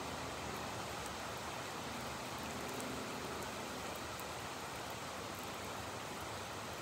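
Steady rain falling at night, an even hiss with no break or thunderclap.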